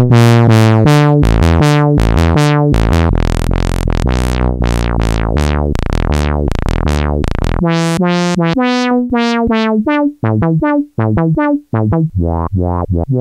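Sawtooth-wave synthesizer sequence played through a Studio Electronics (SE) 4075 Eurorack filter, with the cutoff turned by hand. The notes run bright and buzzy at first, then about eight seconds in the filter closes down and they become short, muted plucks with gaps between them.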